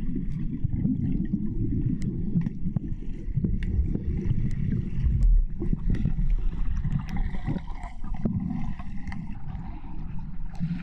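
Underwater sound in a swimming pool as recorded by a submerged camera: a steady muffled rumble with bubbling from swimmers, scattered with many short sharp clicks and knocks.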